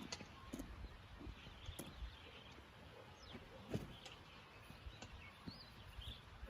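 Faint outdoor ambience: a few short bird chirps over a low rumbling background, with scattered light knocks and clicks.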